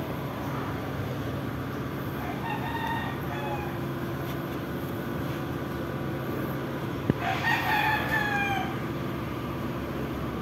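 A rooster crowing twice over a steady low background hum. A shorter, fainter crow comes about two and a half seconds in, and a louder one about seven seconds in, just after a sharp click.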